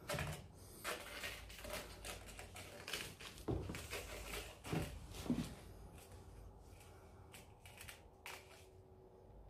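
Kittens scuffling and batting a small toy on wooden decking: a run of soft scratches and taps from paws and claws with a few dull thumps, thinning out after about six seconds.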